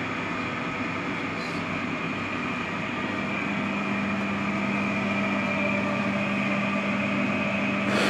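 Kitchen range hood extractor fan running with a steady hum and whir; a deeper hum joins about three seconds in. A short click near the end.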